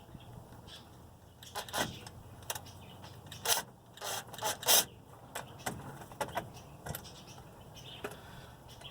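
Irregular clinks and knocks of metal bolts and hand tools being handled while a differential cover is refitted, the loudest few bunched together in the middle.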